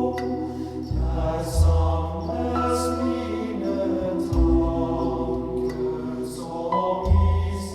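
Recorded music played back through a 2A3 single-ended tube amplifier and a two-way speaker, heard from the speaker: sustained chords over a deep bass note that moves to a new note every three seconds or so, with a few brief bright swells up high.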